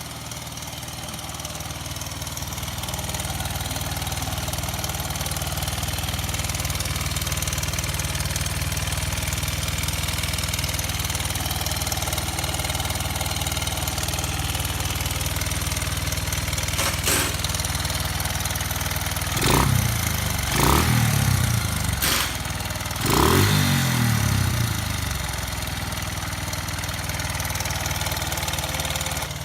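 Honda Ape's air-cooled single-cylinder four-stroke engine idling steadily, then blipped three times in quick succession past the middle, each rev falling back to idle, with a couple of sharp clicks in between.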